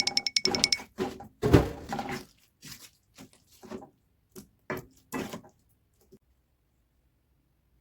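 Kitchen utensil knocking and scraping against cookware: a quick run of clinks at first, then scattered knocks that thin out and stop about six seconds in.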